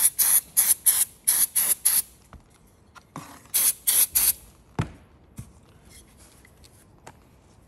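Aerosol cleaner sprayed into a throttle body in short, quick squirts, about three a second, to flush out deposits. After a pause comes a second run of squirts, then a single knock near five seconds.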